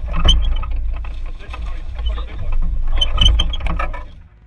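Heavy low rumble in a bass boat while a hooked fish is fought on a bent rod. Two louder bursts of clattering, splashy commotion come near the start and about three seconds in, and the sound drops away sharply just after four seconds.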